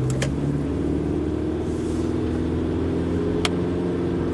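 Car engine and road noise heard from inside the cabin while driving, a steady low hum with a few faint clicks.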